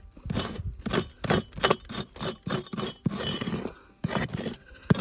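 Prospecting pick chopping and scraping into stony ground to dig out a metal-detector target, with about three strikes a second, then a scrape and a pause before one more strike near the end.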